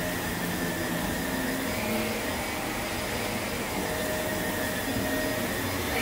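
Vacuum cleaner running steadily, a whining motor over a rushing airflow, its pitch dipping and rising slightly a couple of times.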